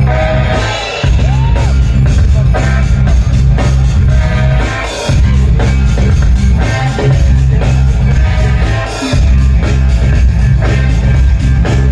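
Loud music with singing over a heavy bass beat, the bass dropping out briefly about every four seconds.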